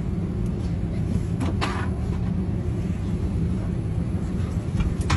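Steady low rumble of an airliner cabin's air system, with a few short knocks and clatters from the overhead bin as a passenger gets his bag down, about one and a half seconds in and again near the end.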